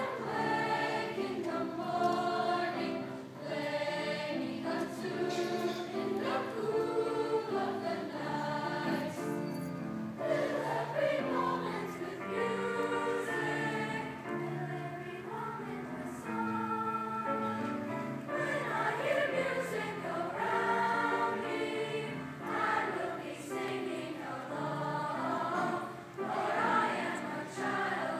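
School choir singing in harmony, several voice parts sounding together.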